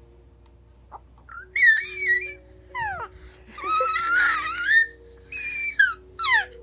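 A baby making a string of about five high-pitched squeals, some sliding down in pitch, the longest about four seconds in, over a soft tinkling melody.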